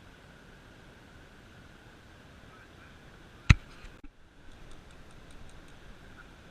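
Steady faint hiss, broken about three and a half seconds in by one sharp click or knock, the loudest thing heard. After it the hiss drops away, leaving faint quick ticks.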